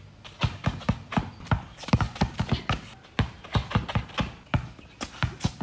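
A basketball dribbled hard on a concrete court, bouncing about three times a second in an uneven rhythm.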